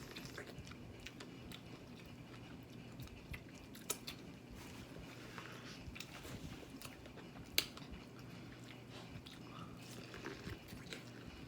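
A person chewing and biting food, with soft wet mouth clicks and a couple of sharper clicks about four and seven and a half seconds in.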